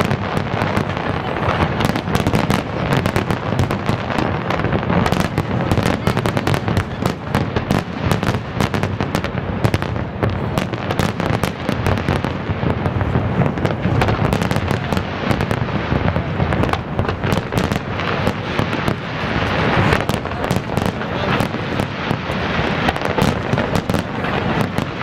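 Fireworks display at full intensity: a dense, unbroken barrage of bangs and crackling, many sharp reports every second with no pause.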